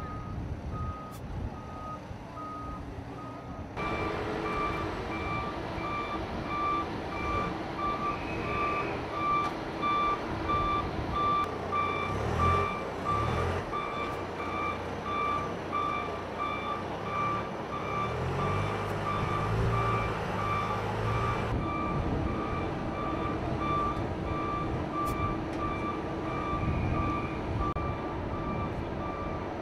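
Reverse warning alarm of heavy vehicles working a ship's loading ramp, beeping steadily and evenly, with a vehicle engine running underneath that grows louder in the middle.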